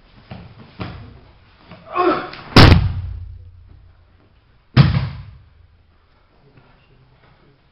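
A body thrown down onto a padded martial-arts mat, landing with a loud slam just after a short shout, followed about two seconds later by a second heavy thud on the mat.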